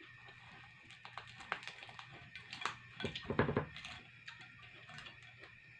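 Crackling and snapping of the charred, bony-plated skin of a grilled janitor fish (armored catfish) being torn apart by hand, with a few clicks against the plate; the crackles come in scattered bursts, thickest and loudest about three seconds in.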